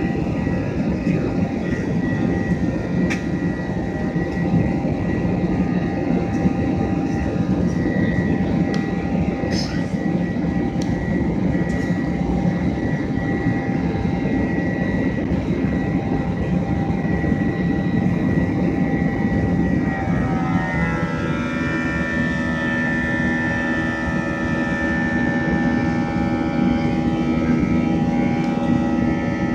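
Jet airliner's turbofan engines heard from inside the cabin during the climb after takeoff: a loud, steady rush with a steady whine over it. About two-thirds of the way through, the engine tones slide and settle at new pitches.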